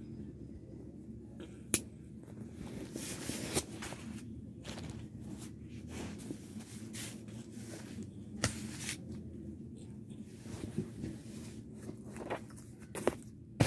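Handling noise: rustling of clothing and fabric as a person moves about and handles small objects, with a few sharp clicks scattered through it, the loudest near the end.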